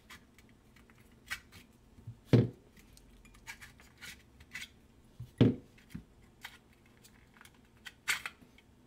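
Light clicks and taps of a plastic Ryobi 18V battery pack being handled as its old cylindrical lithium-ion cells are slid out of the cell holder, with two louder knocks about three seconds apart.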